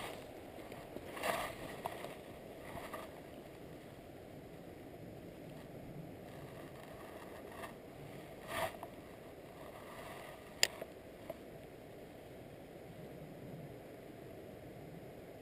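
Quiet riverside ambience: a steady low rush, with a few brief soft handling noises and one sharp click about ten and a half seconds in.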